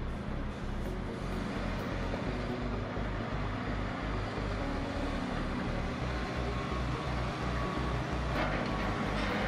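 Diesel engine of a MAN TGS four-axle tipper truck running with a steady, regular low throb as the truck pulls away. A rush of noise swells near the end.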